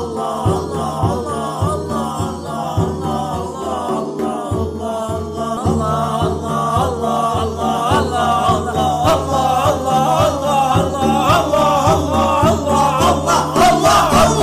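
Islamic dhikr chanted by a group of voices over a steady low drone and a regular pulse, growing louder in the second half.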